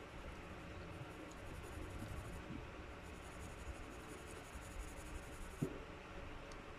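Graphite pencil scratching faintly on sketch-pad paper as a nose drawing is shaded, stopping near the end as the pencil is lifted.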